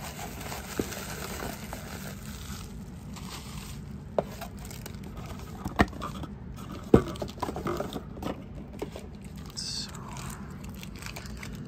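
Plastic bags and bubble wrap rustling and crinkling as parts are pulled out of a packed box, with a few sharp knocks as items are handled, the loudest about seven seconds in.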